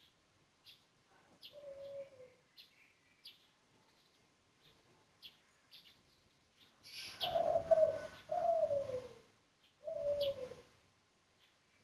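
Spotted dove (tekukur) cooing: low coo notes that fall in pitch, with a louder, noisier pair of coos past the middle. Short high chirps sound throughout.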